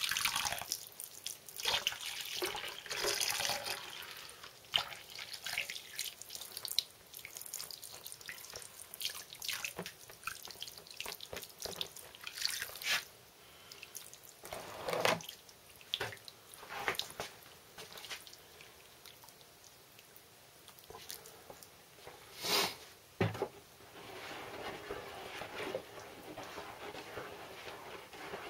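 Wet plaster of Paris poured in a thin stream onto a clay pattern, splattering and trickling unevenly, busiest in the first few seconds. Two sharper, louder sounds stand out, about 15 and 22 seconds in.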